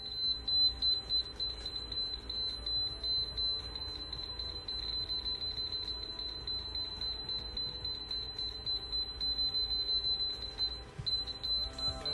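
GR-11R red-beam laser receiver beeping: one high electronic tone that sounds almost without a break and flickers quickly in strength, with a short gap near the end. It is the near-continuous tone such a receiver gives when it sits on the rotating laser's beam at grade.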